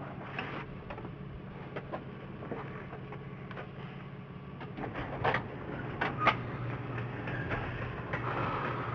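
An engine idling steadily with a low hum, with scattered clicks and knocks of tools and parts being handled over it; the sharpest knocks come about five and six seconds in.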